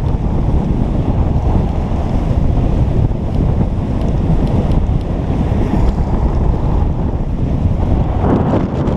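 Heavy wind noise buffeting a moving action camera's microphone at speed on a downhill ski run: a loud, steady low rumble, swelling briefly brighter near the end.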